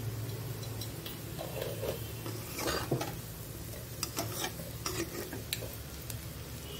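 A utensil stirring fried potato cubes in a pan, scraping against the pan a few times, with a faint sizzle of frying and a steady low hum underneath.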